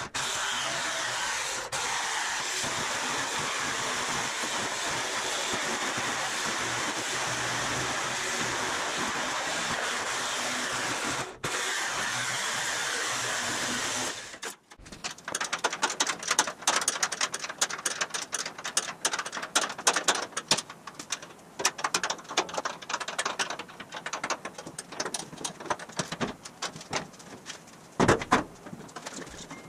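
Handheld electric sheet-metal shear running steadily as it trims an aluminum body panel, cutting off abruptly about halfway through. After it, irregular knocks and clatter, with a louder knock near the end.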